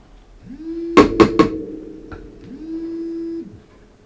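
Plastic toner bottle knocked about four times in quick succession against a laser toner cartridge's fill opening, tapping out the last of the dry toner powder. A low steady hum, about a second long, comes and goes twice.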